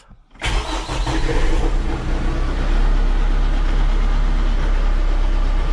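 Kubota tractor's diesel engine starting up: it catches about half a second in and settles into a steady run.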